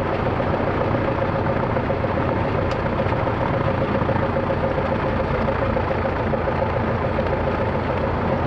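Single-engine light aircraft's piston engine idling at low rpm while the plane taxis slowly, its propeller turning. A steady low rumble with a constant hum, unchanging throughout.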